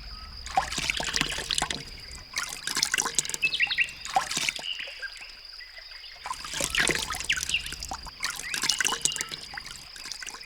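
Small birds bathing in shallow water: quick splashes and trickling water, with short chirps between.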